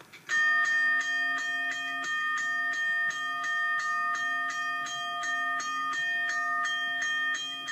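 Recorded sample of a mechanical railroad crossing bell played back, its clapper striking the gong about three times a second. Each stroke rings on, with several steady overtones sounding together.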